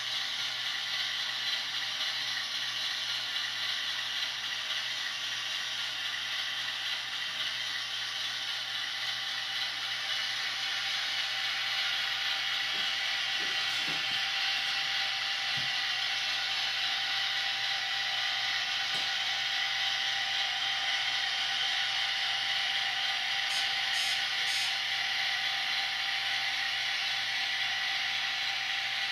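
Model WDG-4 diesel locomotive with a sound decoder running along the track: a steady diesel engine sound from its small onboard speaker, mixed with the whir of the model's motor and wheels. A few light clicks come about halfway through.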